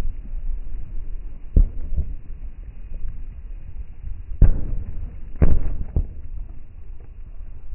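Fireworks going off: several sharp bangs, the two loudest about a second apart past the middle, the second a quick crackling cluster, over a steady low rumble.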